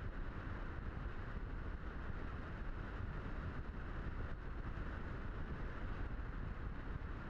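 Steady rush of wind over the onboard camera's microphone of a Blitz RC Super Skysurfer model glider in flight, with a low rumble underneath. The electric motor is drawing little power, so the plane is close to gliding.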